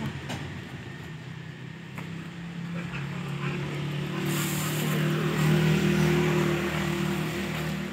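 A motor vehicle engine running past, growing louder to a peak about six seconds in and then beginning to fade.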